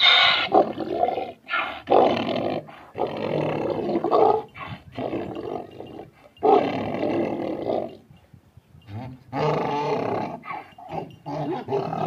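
Donkey braying: a string of long rasping hee-haw calls with short breaks between them and a brief pause about eight seconds in before the braying starts again.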